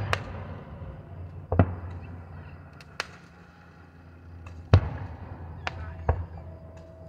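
Aerial firework shells bursting in the distance: about six booms and cracks a second or so apart over a low rumble, the loudest about three-quarters of the way through.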